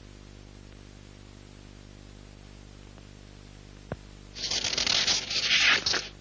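Steady low electrical hum with a single sharp click about four seconds in, then about a second and a half of loud, dry rustling noise.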